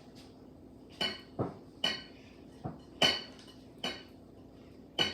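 Kitchen utensils clinking against a mixing bowl while brownie batter is being made: about seven sharp, ringing clinks at irregular intervals, starting about a second in.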